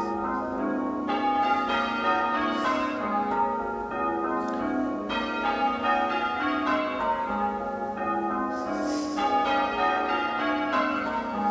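Full-circle church bells in the tower ringing changes during a peal: a continuous, even run of overlapping bell strikes.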